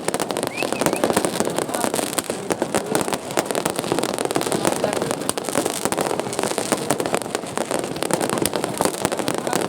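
Fireworks and firecrackers going off nonstop, a dense run of overlapping pops and bangs with no pause.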